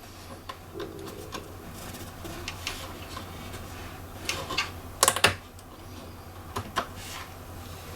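Small clicks and taps of hands handling the casing and parts of a Sony VAIO computer during a memory swap, with two sharper clicks about five seconds in, over a steady low hum.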